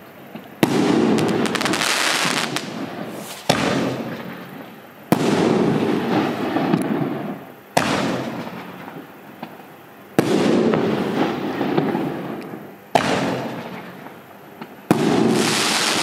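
Evolution Fireworks Sonnet 9 single-shot firework shells going off one after another. Each shot has a sharp launch bang, and about two seconds later the shell bursts into a noisy crackling tail that fades over a couple of seconds. Four bursts and three launches are heard.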